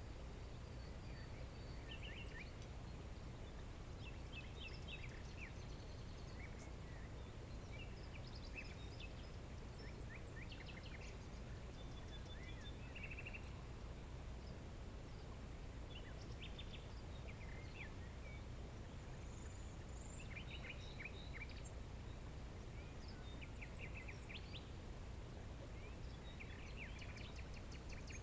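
Wild songbirds calling, with short chirps and quick trills from several birds throughout, over a steady low background rumble.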